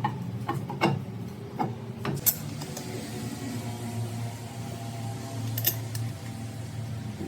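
A handful of sharp metal clinks and knocks, irregularly spaced, over a steady low machine hum.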